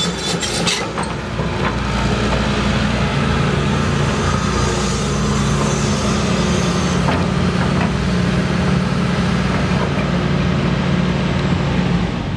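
A John Deere 225D LC excavator's Tier 3 Isuzu diesel running steadily under hydraulic load as the machine swings its boom. A rapid clatter stops about a second in.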